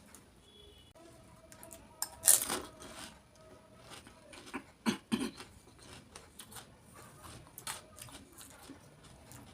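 Close-up eating sounds of crisp golgappa (pani puri) shells: a loud crunching bite about two seconds in, two sharp cracks around the middle, and small chewing clicks between.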